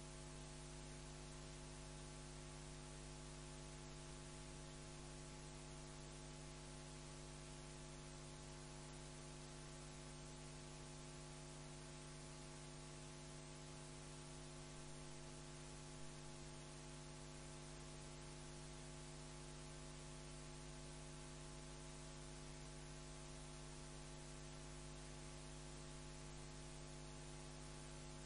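Steady electrical mains hum with a constant hiss underneath, unchanging throughout: an idle audio feed with nothing else to be heard.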